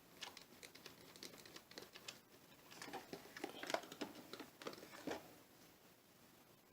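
Faint handling noise from fitting wheels on a 1/10-scale RC truck: scattered small clicks, scrapes and rustling, busiest in the middle.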